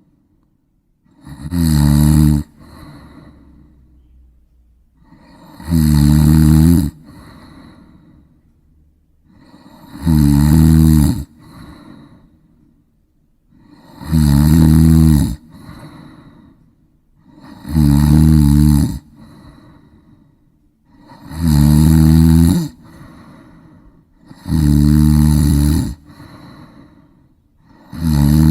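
A person snoring in a steady rhythm: a loud, pitched snore about every four seconds, eight in all, with much quieter breathing between.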